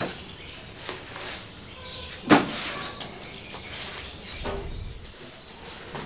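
A few short knocks and clunks, the loudest about two seconds in, over a quiet background.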